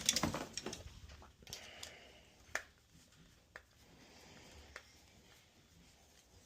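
Light clicks and taps of a screwdriver and its screw as a screw is backed out of door hardware: a small cluster of clicks at the start, then a few single sharp clicks a second or so apart.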